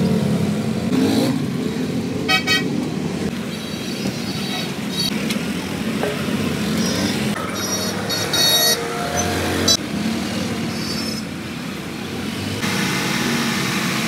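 Road traffic with vehicle horns tooting: a short honk about two seconds in and a longer run of honks around eight seconds, over a steady low engine hum.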